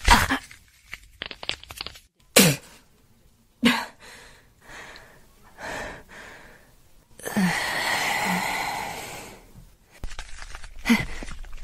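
A woman's voice in pain: short sharp gasps and cries in the first few seconds, then a long hissing breath out through the teeth lasting a couple of seconds.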